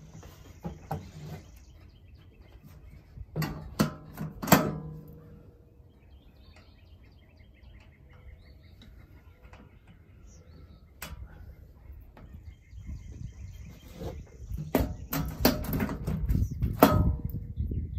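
Knocks and clicks of wheels being fitted back onto a portable air compressor's axle. There is a short cluster a few seconds in, a single click in the middle, and the loudest run of clattering handling near the end.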